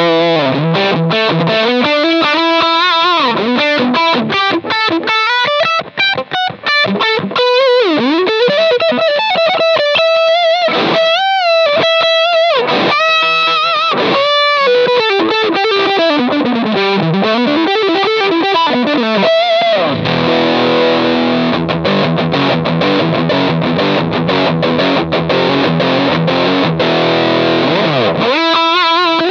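Electric guitar through a Sinvertek Drive N5 Plus distortion pedal set to high gain, playing a lead solo of single notes with string bends. About twenty seconds in it changes to fast, dense rhythm chords, then goes back to single-note lines near the end.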